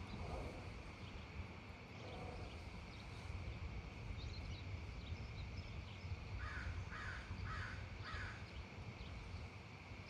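A bird giving four short calls in quick succession, about half a second apart, over a steady low rumble and a faint steady high tone.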